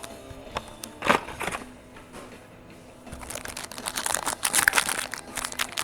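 Paper and cardboard rustling and crinkling as a trading-card box is opened and the cards handled, with one louder swish about a second in and busier rustling in the second half. Faint background music plays underneath.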